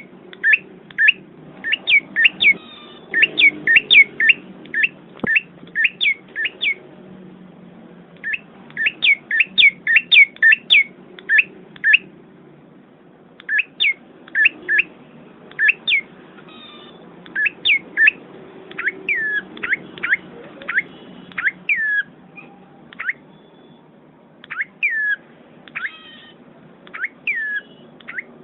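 Small red-headed forest bird calling: runs of short, sharp high chirps, each sliding down in pitch, several a second, broken by brief pauses.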